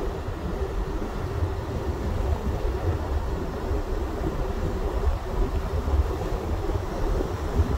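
Wind rushing in through the open window of a moving truck, buffeting the microphone with a heavy, unsteady low rumble, over the steady drone of the moving truck.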